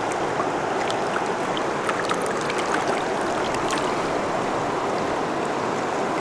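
Gunnison River current rushing steadily past close to the water's surface, with a few light ticks of water.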